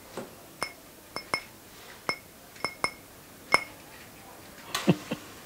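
Small drinking glass tapped lightly, about seven times at an uneven pace, each tap giving a short glassy ring. A louder knock comes near the end.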